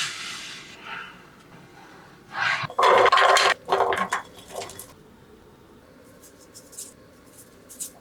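Cookware and utensils being handled: a cluster of loud scraping, clattering sounds a couple of seconds in, then a few faint light ticks near the end.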